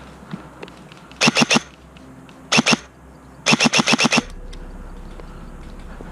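Airsoft gun firing three short rapid bursts of shots, about ten a second: a few shots, then a few more, then a longer string of about seven.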